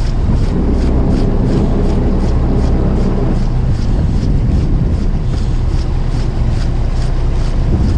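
Strong wind buffeting the microphone on a boat at sea, with a heavy low rumble and waves washing against the hull. A faint regular ticking runs underneath, about three times a second.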